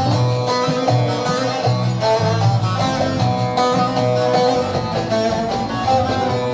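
Instrumental break in a Turkish folk song: plucked string instruments play a quick, busy melody over a steady bass line.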